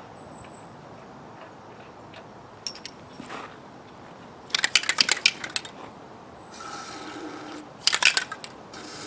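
Aerosol lubricant can shaken, its mixing ball rattling in quick clicks, then sprayed in a hiss of about a second. A second brief rattle follows, then another spray starts near the end.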